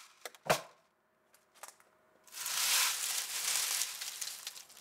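Dry, threshed bean pods crackling and rustling as hands stir and rub them in a sieve, letting the chaff fall through. A few sharp clicks come first, then a continuous crisp rustle from about halfway in.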